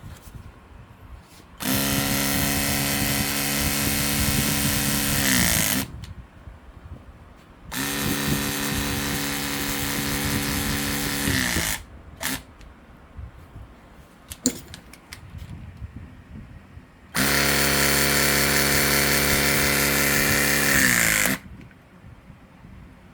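Klauke EK 60/22 CFM battery-powered hydraulic crimping tool running its motor and pump through three separate cycles of about four seconds each. In each cycle the hum holds steady, then drops in pitch as the motor slows under load, then cuts off. Small clicks and knocks come between the cycles.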